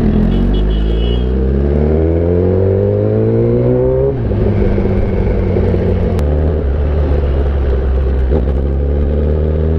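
Kawasaki ZX-10R's inline-four engine pulling up through the revs for about four seconds, dropping in pitch at an upshift, then pulling on with its note climbing only slowly.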